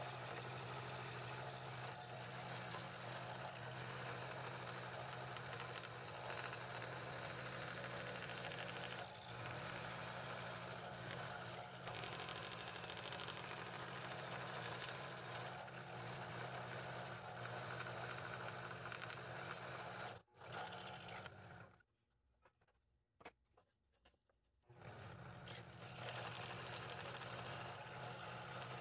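Scroll saw with a No. 5 blade running and cutting through a thick wooden blank, with a steady motor hum under the sawing. Near the end the sound stops for about three seconds, with a few faint clicks, then the saw runs again.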